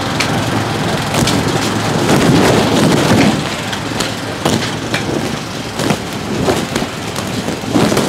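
High wind gusting against a pit tent, the tent fabric flapping and snapping against its metal frame in irregular cracks over a steady rush of wind.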